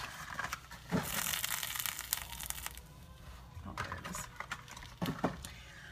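Crinkling, rustling handling noise for about two seconds, with a few light knocks scattered around it, as small bottles of flavouring extract are put away.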